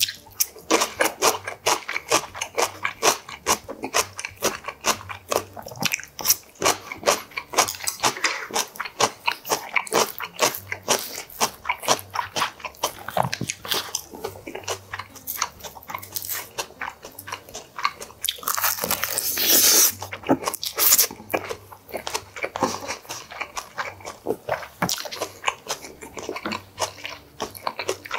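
Close-miked chewing and crunching of food: a steady, quick run of crisp bites and chews. About two-thirds of the way through comes a louder, longer rasping noise of about a second and a half.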